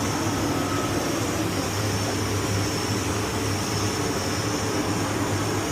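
Riello boiler burner running: its combustion-air blower gives a steady hum and airy rush.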